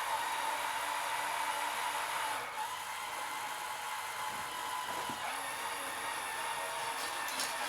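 Liebherr PR 754 crawler bulldozer running, a steady mechanical noise with a constant whine through it.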